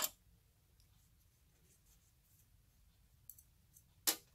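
Near silence, with a faint click about three seconds in and a single sharp click near the end, from screwdriver work on the inverter's sheet-metal parts as a screw is taken out.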